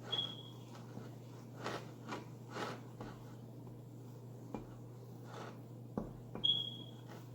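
Mixing stick stirring slime in a cup: scattered short scrapes and clicks, with a short high squeak at the start and another near the end, over a low steady hum.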